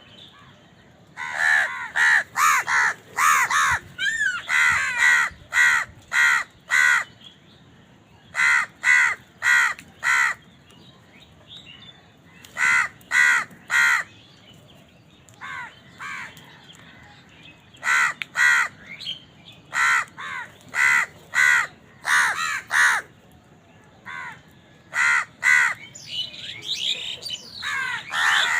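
Crows cawing: harsh calls in quick runs of three to five, with pauses of a second or two between the runs.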